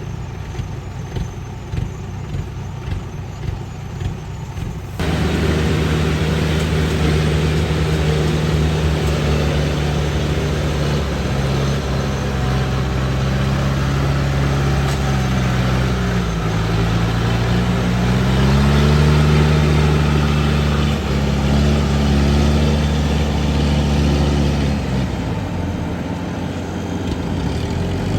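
Yanmar 850 combine harvester's diesel engine running, suddenly louder about five seconds in. Its pitch dips and climbs again around the middle, then eases near the end.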